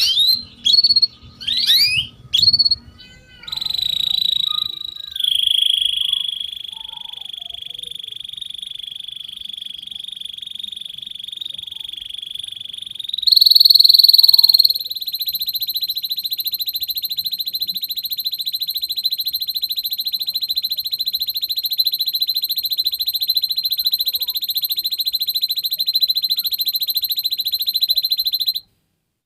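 Domestic canary singing: a few quick chirps and sweeping notes, then a long, rapid rolling trill that runs on for over twenty seconds, with a louder, higher-pitched stretch about halfway through, and cuts off suddenly just before the end.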